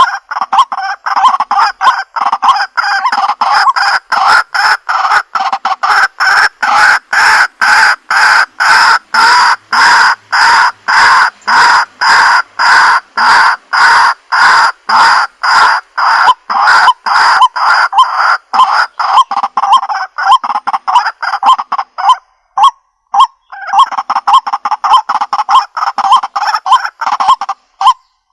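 White-breasted waterhen calling its repeated croaking 'kru-wak' note, about two calls a second. The calls break off briefly about three-quarters of the way through, then start again. A steady high-pitched tone runs behind them.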